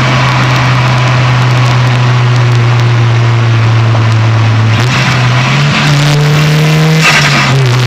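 Turbocharged 4G15 MIVEC four-cylinder engine of a Proton Saga running under load, heard from inside the engine bay. Its note sags slowly, then changes pitch about five seconds in and again near seven seconds, each change with a short hiss from the blow-off valve.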